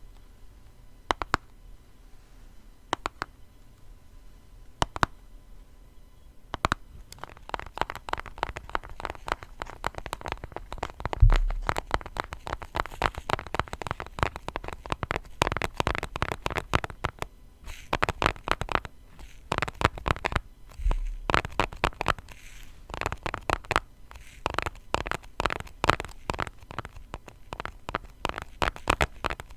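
Fingers tapping on a small cardboard food-colouring box: single taps about a second apart for the first several seconds, then fast, dense tapping and scratching, with two dull low thumps midway.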